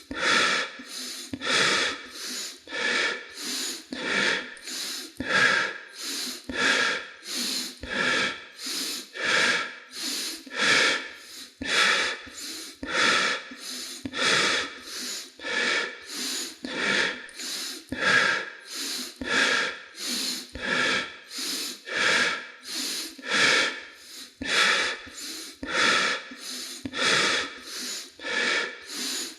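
A person breathing rapidly in and out in an even rhythm, about three breath strokes every two seconds.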